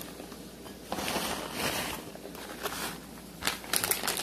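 Shredded cheese poured from its bag into a bowl, the bag rustling and crinkling, with a run of sharp crackles near the end as the bag is handled.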